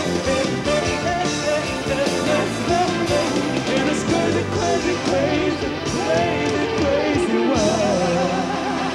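Live rock band playing with a singer's wordless, wavering vocal over it.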